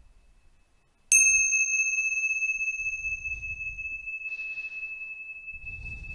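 A small high-pitched bell struck once about a second in: its brighter overtones die away quickly while one clear high tone rings on, slowly fading.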